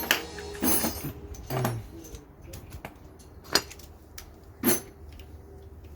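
A handful of separate sharp metallic clinks and knocks from small metal objects being handled, the two loudest about three and a half and nearly five seconds in.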